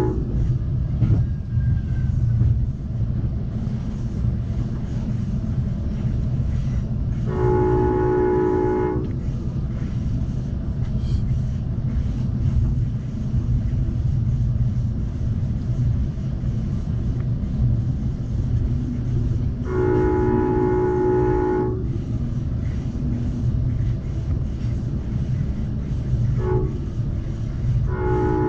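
Amtrak Cascades passenger train running with a steady low rumble, heard from inside the coach, while the locomotive's horn sounds a chord of several tones: two long blasts about twelve seconds apart, then a short one and a long one near the end, the long-long-short-long pattern blown for a grade crossing.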